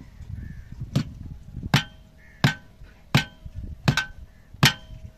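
Hammer blows on metal in a steady rhythm, six strikes about 0.7 seconds apart, each leaving a short ringing note.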